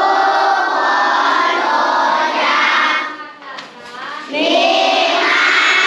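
A group of children chanting in unison in long drawn-out phrases, with a short break about three seconds in; typical of a recitation before a school meal.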